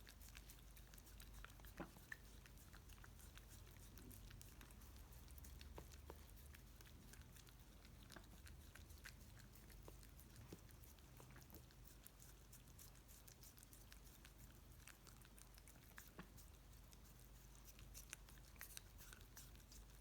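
Spitz dog licking and chewing ice cream: faint, irregular wet clicks and smacks.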